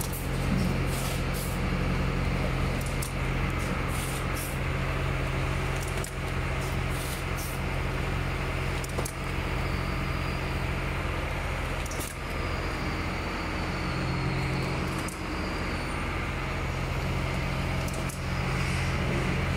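Automatic cartoning machine running: a steady low mechanical hum from its drive and conveyor, with irregular sharp clicks and knocks from the carton-handling mechanism as cartons are folded and pushed along.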